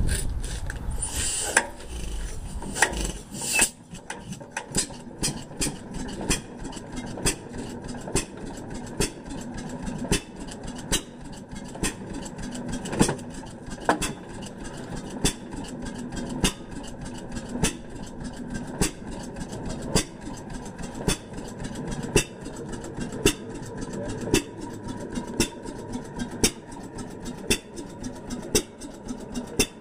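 Fairbanks Morse hit-and-miss engine running, a sharp firing beat about once a second with lighter clicks between.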